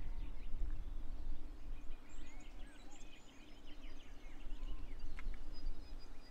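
Several small birds chirping and calling, many short rising and falling notes, over a steady low rumble.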